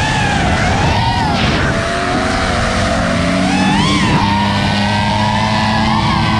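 FPV quadcopter motors and propellers whining, the pitch rising and falling as the throttle changes, with a steadier low engine hum joining about halfway through.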